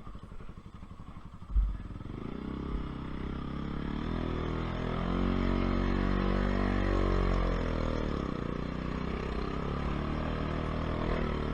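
Motorcycle engine pulling up a steep dirt track, its pitch rising about two seconds in and then holding steady under load, after a single thump at the start.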